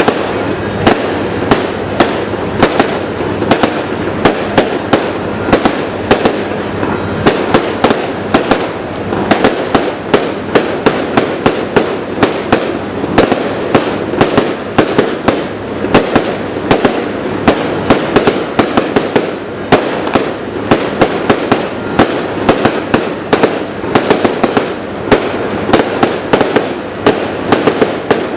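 Aerial fireworks display going off in a dense, continuous barrage: sharp bangs, several a second, over a steady crackling.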